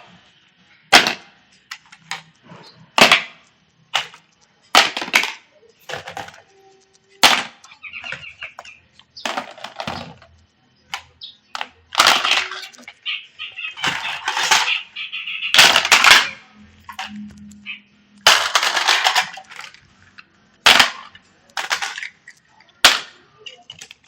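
Toy guns clicking and firing: irregular sharp snaps and short bursts of noise, some lasting a second or two.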